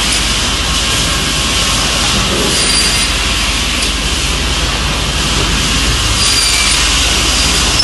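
Multiblade circular rip saw cutting a board as feed rollers carry it through the blades: a loud, steady sawing noise over a low machine hum.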